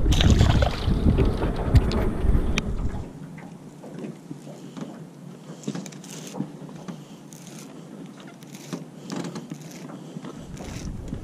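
Wind buffeting the microphone in a heavy low rumble for about three seconds, then dropping away abruptly. The quieter stretch after it holds scattered light clicks and taps from a baitcasting rod and reel being handled, and the low wind rumble comes back near the end.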